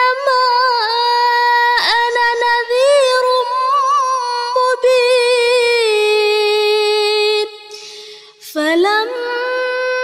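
A woman reciting the Quran in the melodic chanted style, holding long notes with ornamented turns. She takes a quick breath about eight seconds in.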